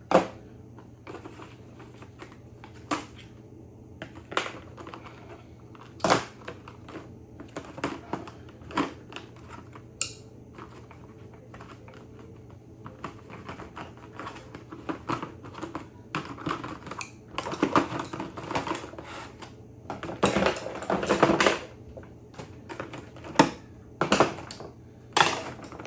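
Plastic packaging and screwdrivers being handled: irregular clicks, taps and light knocks, denser and louder with some rustling about two-thirds of the way through.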